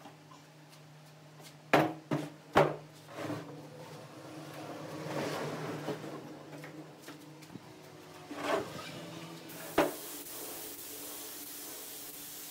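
Solid wooden table parts being handled and set down on a workbench: a few sharp wooden knocks with some rubbing between them. From about three-quarters of the way through comes the steady hiss of a compressed-air spray gun applying finish.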